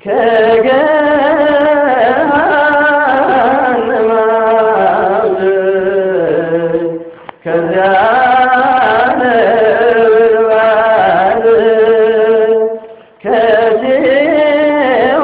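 Ethiopian Orthodox hymn (mezmur) sung in long, wavering melodic phrases, with two short breaks between phrases, about seven seconds in and near the end.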